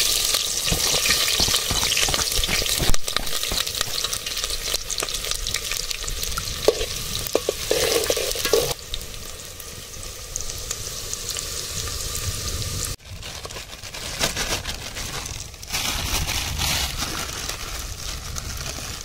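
Chopped onions and diced potatoes sizzling in hot oil in a metal cooking pot, loud as the onions go in. The sizzle eases about halfway through and rises again a few seconds before the end.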